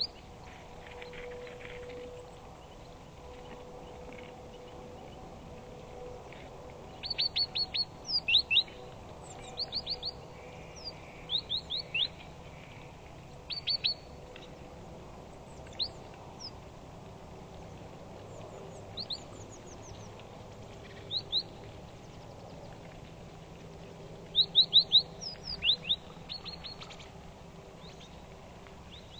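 Great tit calling: short, high, down-slurred notes in quick runs of three to five, repeated with pauses of a second or more between runs.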